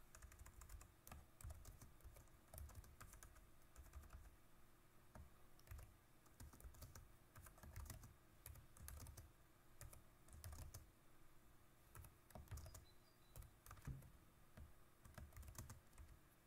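Faint typing on a computer keyboard: irregular runs of keystrokes with short pauses between them.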